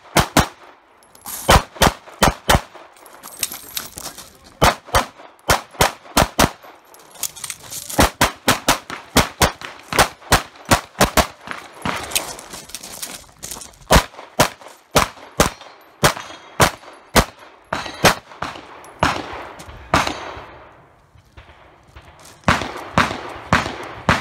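Tanfoglio Stock 2 pistol fired rapidly: shots in quick pairs and longer strings, with brief pauses between groups.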